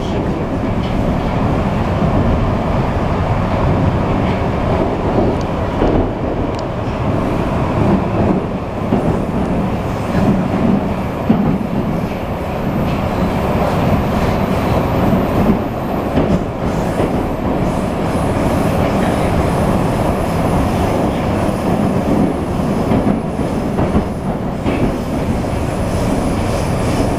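Moscow Metro 81-775/776/777 "Moskva-2020" train running between stations, heard inside the passenger car: a steady rumble of wheels on rails, with a faint high whine joining about a third of the way in.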